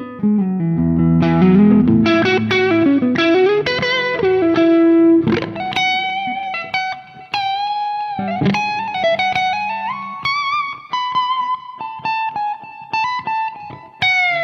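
1991 Ibanez Universe UV7P seven-string electric guitar played through an amp: quick runs of notes in the first few seconds, a note bent down and back near eight seconds, then a slower single-note melody.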